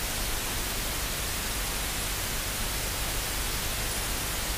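Steady hiss of recording noise, even and unchanging, with no other sound standing out.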